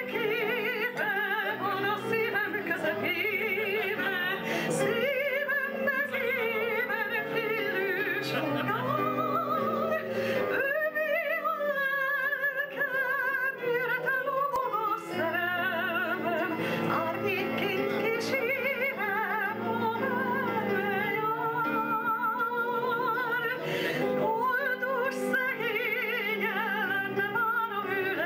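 A woman singing solo into a microphone over instrumental accompaniment. Her long held notes carry a wide vibrato.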